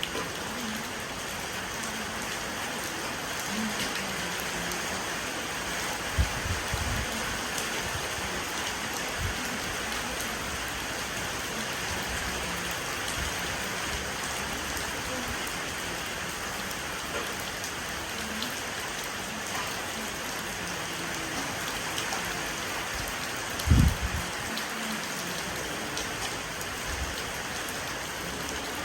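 Steady rain falling on an old porch, an even hiss of drops throughout. A few short, dull low thumps break through, the loudest about three quarters of the way in.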